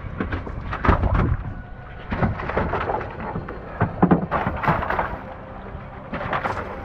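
A freshly landed bluefin tuna thrashing on a fiberglass boat deck: irregular heavy thumps and wet slaps as its tail and body beat against the floor.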